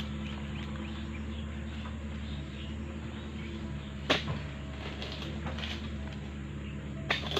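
Sharp chopping knocks of a long-poled steel harvesting chisel (dodos) being jabbed into oil palm frond and bunch stalks, once about four seconds in and again near the end, over a steady low hum.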